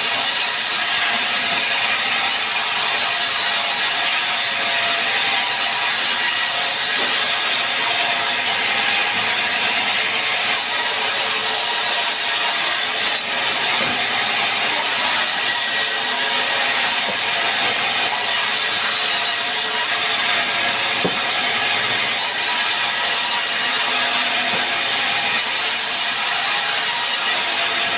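Sawmill band saw cutting sengon wood into boards: a loud, steady hiss of the blade running through the timber that does not let up.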